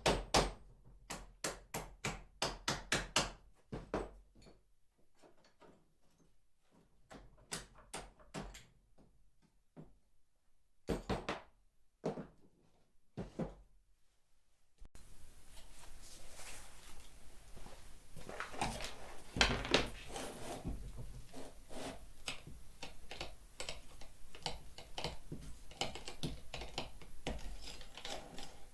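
Workshop knocking: a quick run of hammer-like blows, about three or four a second, then a few scattered knocks. About halfway through, a steady clatter of many small knocks starts and runs on.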